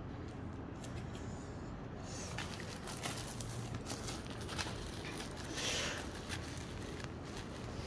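Bubble wrap rustling and crinkling as hands fold and press it around a box, with many small crackling clicks. It gets busier after about two seconds, with a louder rustle near six seconds.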